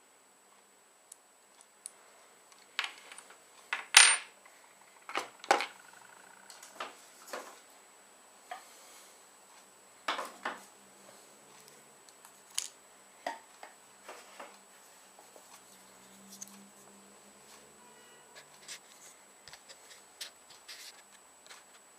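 Irregular clicks, taps and clinks of small hard parts being handled and set down, the loudest knock about four seconds in and softer clatter later.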